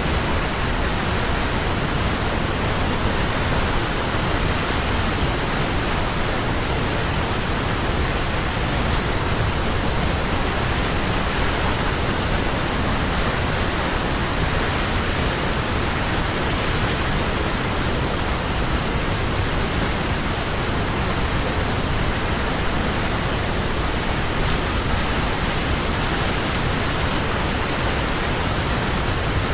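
Waterfall: water falling and rushing in a steady, even roar with no changes.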